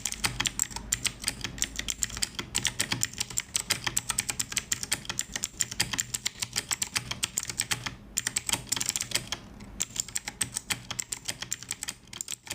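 Fast typing on an E-Yooso Z11 60% mechanical keyboard with Huano blue clicky switches: a quick stream of key clicks, with brief pauses about eight and nine and a half seconds in, thinning out near the end. The switches sound less loud than other blue switches.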